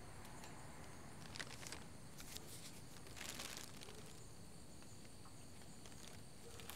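Quiet steady hiss with a few light clicks and a short rustle of paper about three seconds in.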